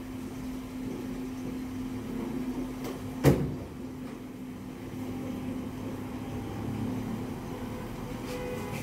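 Steady low electrical hum, with a single sharp knock a little over three seconds in.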